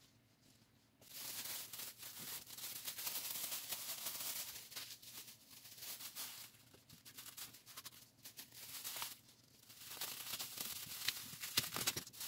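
Thin clear plastic bag crinkling and rustling as gloved hands handle it and fit it over a lidded glass jar. It starts about a second in and eases off briefly twice.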